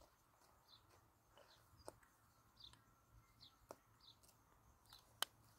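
Faint, quiet outdoor background with small birds chirping: short high notes about every half second. A few sharp clicks stand out, the loudest about five seconds in.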